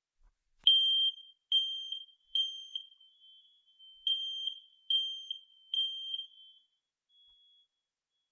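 Smoke detector sounding its test alarm: a high-pitched beep in the temporal-three pattern, three beeps, a short pause, then three more, stopping about six and a half seconds in.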